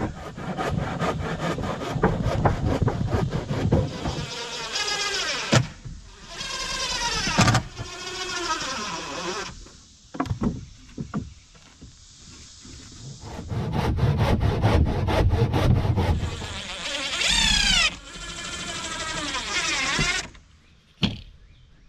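Power tools working wood: a buzzing motor that speeds up and slows down several times, over rapid clattering.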